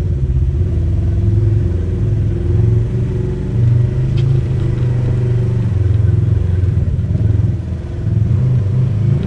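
Polaris RZR side-by-side's engine running at low revs as the vehicle crawls over rock, the throttle swelling and easing a few times, with a short let-off just before the end.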